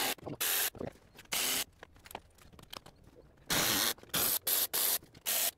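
Electric ratchet running in about eight short trigger bursts, one longer than the rest past the middle, spinning out 10 mm bolts.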